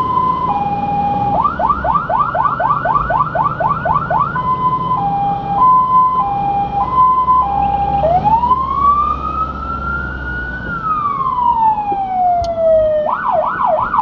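Fire engine's electronic siren on an emergency run, changing modes: a high-low two-tone, then a fast yelp of about four sweeps a second, the two-tone again, a single slow wail that rises and then falls, and the fast yelp again near the end. The truck's engine hums steadily underneath.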